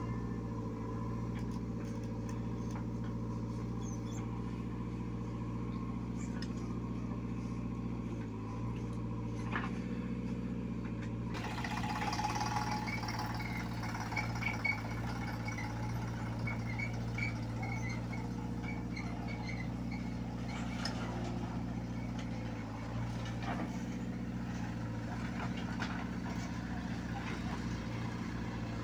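Diesel engines of a JCB 3DX backhoe loader and farm tractors running steadily, with a few faint knocks from the digging and loading.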